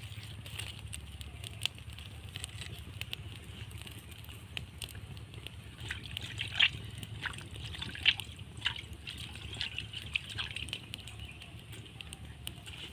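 Wood fire crackling and sizzling, with irregular sharp pops; the two loudest come about six and a half and eight seconds in.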